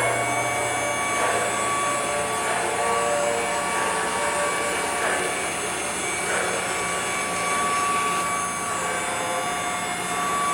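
Kalorik KK290AY-AD robot vacuum running: a steady motor whine over a rushing suction and brush noise.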